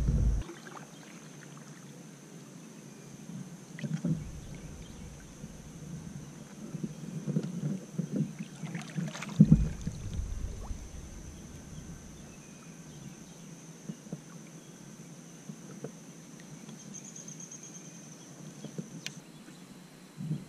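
Fishing kayak on calm water: scattered knocks and thumps of the paddle and gear against the hull, the loudest at the very start and about nine and a half seconds in. A faint steady high whine runs underneath and stops near the end.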